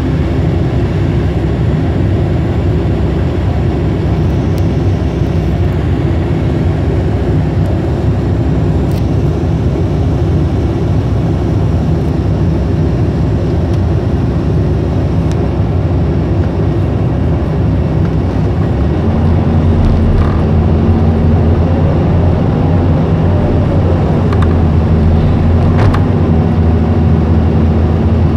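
Caterpillar hydraulic excavator's diesel engine running steadily under load as the arm and bucket work, heard close from the operator's cab; about two-thirds of the way through the engine note grows louder.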